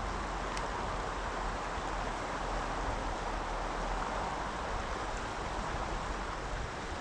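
River water rushing steadily, an even wash of noise.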